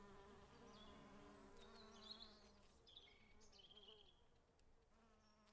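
Faint buzzing of bees, a low wavering drone that fades out near the end, with a few faint high chirps above it.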